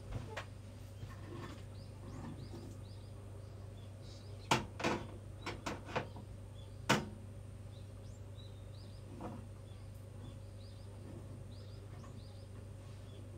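Kitchen utensils clinking and knocking against cookware, half a dozen sharp strikes clustered around the middle. Under them runs a steady low hum, with faint high chirps repeating.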